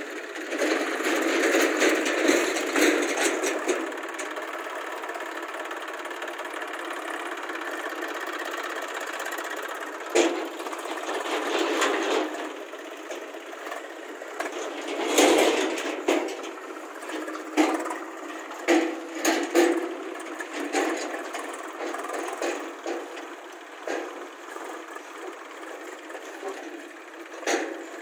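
Diesel engines of a JCB backhoe loader and a farm tractor running, with scattered sharp knocks and clatters. The loudest knocks come about two to three seconds in and again about fifteen seconds in.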